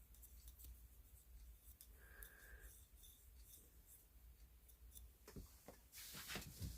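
Faint rubbing and scrubbing as a dirty metal flashlight reflector is wiped clean by hand, with small clicks of handling. There is a short squeak about two seconds in, and a louder burst of scrubbing near the end.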